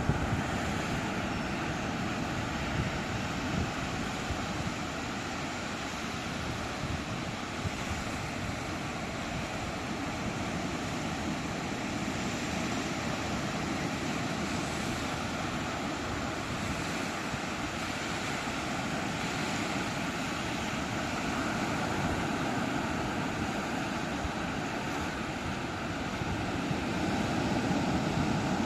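Sea waves breaking slowly on the shore: a steady, continuous surf wash with a low rumble, swelling a little near the end.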